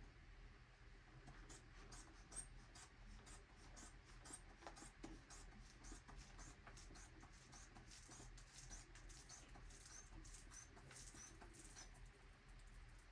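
Near silence with faint small clicks, about two a second, from handling a manual blood pressure cuff and stethoscope during an ankle reading.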